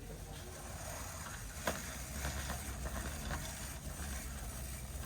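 Shopping cart rolling over a hard store floor: a steady low rumble with one sharp click about one and a half seconds in, then a few lighter clicks and rattles.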